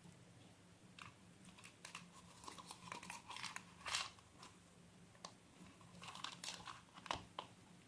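Faint, irregular clicks and short scrapes of a ceiling fan's upper canopy being handled and slid into place on the fan, with a sharper click about four seconds in and another near the end.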